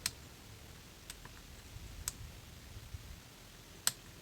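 Sharp, irregular metallic clicks as a lock pick works the pin stacks of a Robur safe deposit box lock, about five clicks spread unevenly over the few seconds.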